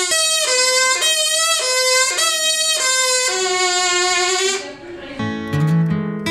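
Plastic-straw oboe, a flattened drinking straw with a V-cut reed end, blown in a string of short notes at changing pitches, the last one held longer and lower. About five seconds in, acoustic guitar music takes over.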